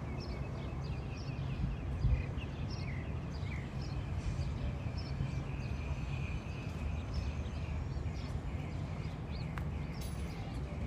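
Small birds chirping many times in quick, short calls over a low, steady outdoor rumble.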